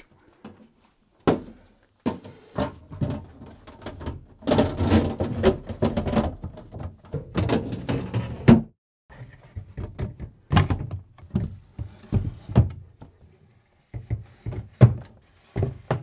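Plastic fridge-freezer drawers and shelves being slid back into their runners and set in place: scraping slides and a run of clunks and knocks, the longest scrape in the middle.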